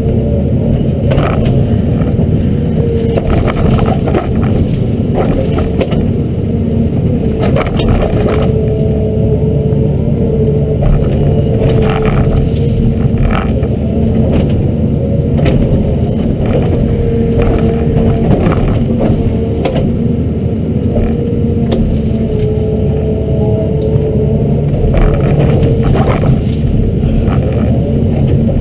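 Hyundai R210 LC-7 excavator's diesel engine running steadily under working load, with a hydraulic whine that rises and drops away every few seconds. Scattered knocks, cracks and scrapes come from the 72-inch rake and thumb working through willow brush.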